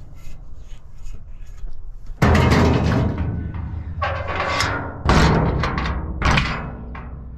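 Steel rear door of a dump truck swung shut by hand and latched, with loud metal bangs and clanks ringing on. The two loudest come about two seconds and five seconds in.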